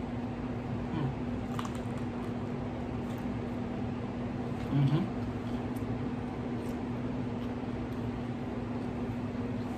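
A man chewing a crispy fried wrap between bites, with faint mouth clicks over a steady low hum, and a short hummed "mm" about five seconds in.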